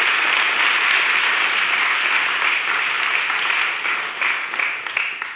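Audience applauding, a steady dense clapping that tapers off near the end.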